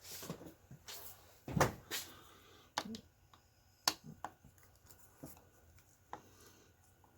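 Scattered clicks and knocks of hard parts being handled while the float and switch assembly is taken off a Zoeller M57 sump pump; the loudest knock comes about a second and a half in.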